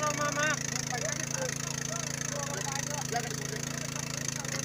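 Distant voices over a steady low hum and a constant high hiss.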